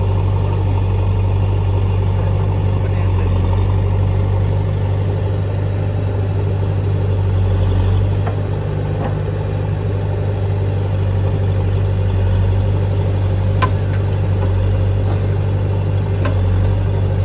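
Diesel engine of a JCB backhoe loader running steadily under light load while it works soil. A few short knocks sound over it, about 8 seconds in and again three times near the end.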